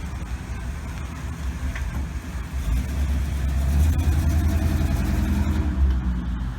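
A car engine running with a low rumble that grows louder about two and a half seconds in.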